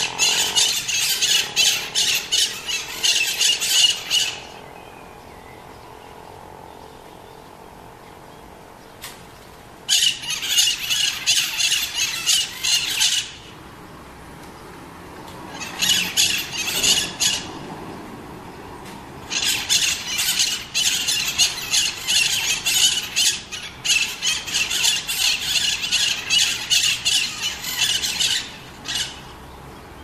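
Green parakeets (maritacas) screeching in bouts of rapid, harsh, repeated calls. The first bout runs for about four seconds at the start, another starts about ten seconds in, a short one comes near sixteen seconds, and a long bout lasts from about nineteen to twenty-nine seconds, with quiet gaps between them.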